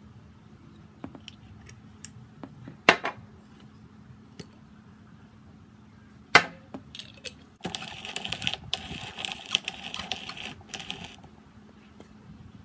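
Handling of sauce bottles while seasoning food: a few light clicks, then two sharp knocks of a bottle, about three and a half seconds apart. After that comes about three seconds of dense rattling clatter, over a faint steady hum.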